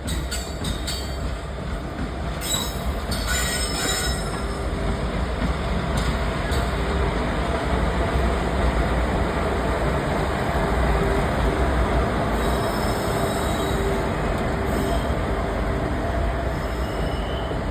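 Train running along the track: a steady rumble of wheels on rails, with a few sharp clicks a few seconds in.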